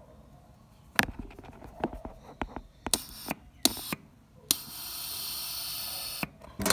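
A 12-volt air-horn solenoid valve being tested on a battery: sharp clicks and crackles as its wire is touched to the terminal, then about a second and a half of steady hissing as air passes through the opened valve, the sign that the valve works.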